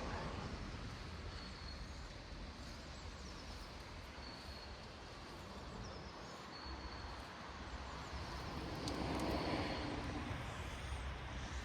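Outdoor background noise: a steady low rumble with short, faint high chirps now and then, swelling louder about nine seconds in.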